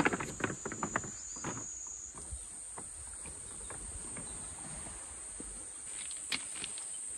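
Cicadas buzzing in a steady high-pitched drone, with a quick run of footsteps in the first two seconds and a few more steps later on.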